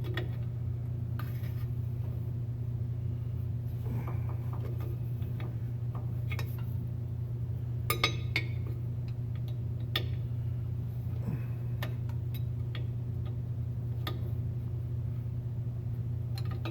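Hand tools clinking and scraping on metal as a rear drum-brake wheel cylinder is worked loose, with scattered sharp clinks, the loudest a quick cluster about halfway through. A steady low hum runs underneath.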